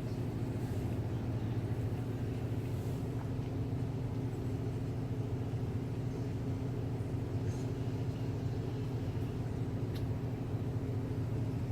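A steady low machine hum with an even, unchanging drone, and a faint click about ten seconds in.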